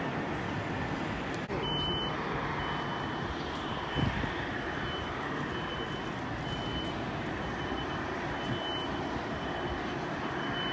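Steady airport background noise, with a ground vehicle's reversing beeper sounding at an even pace from about two seconds in. A short thump about four seconds in.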